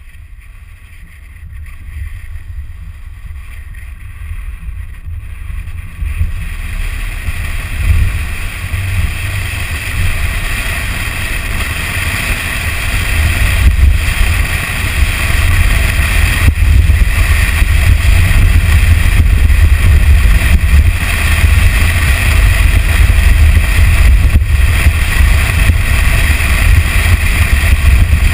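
Toyota Tacoma pickup driving fast along a sandy dirt trail: a steady rush of wind buffeting the microphone over tyre and vehicle noise, growing louder over the first dozen seconds as the truck speeds up, then staying loud.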